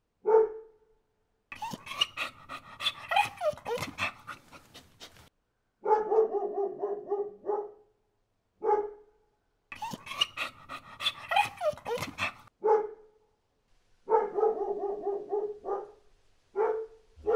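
Dog barking: single sharp barks between quick runs of barks, and two longer stretches of higher-pitched barking mixed with clicking.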